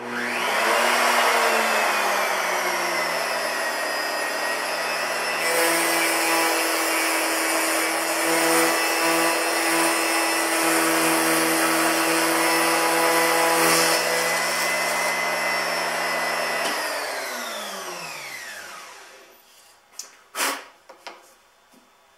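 Table-mounted router starting up with a rising whine and running steadily; for several seconds in the middle the bit cuts a tongue across the end of half-inch plywood, louder and rougher. The router is then switched off and winds down, with a couple of sharp wooden knocks near the end as the pieces are handled.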